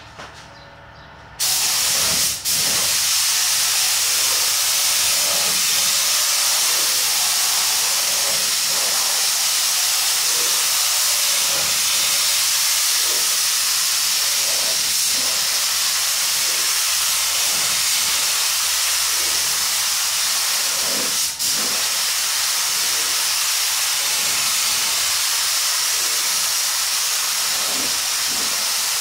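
Iwata Airgunsa gravity-feed spray gun with a 1.3 mm tip spraying clear coat: a loud, steady hiss of compressed air and atomised paint that starts abruptly about a second and a half in, with two brief dips, one shortly after it starts and one about three-quarters of the way through.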